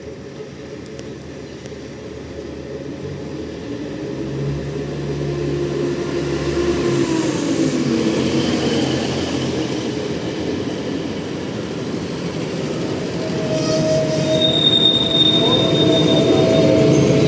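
Train approaching on the rails and growing steadily louder, with steady high-pitched wheel squeal in its later part.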